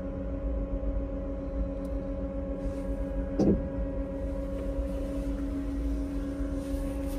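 Steady hum and low rumble of the SpaceX Crew Dragon capsule's cabin equipment, a drone of several fixed tones. A brief falling vocal sound comes about three and a half seconds in.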